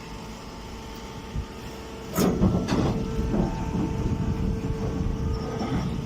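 Chopped straw bagging baler machine running with a steady motor hum. About two seconds in it turns louder and rougher, starting with two sharp clanks half a second apart.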